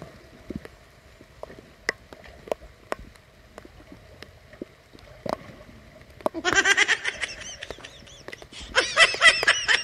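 Faint scattered ticks, then from about six seconds in a high, wavering human voice, loud, in two stretches of a second or so each.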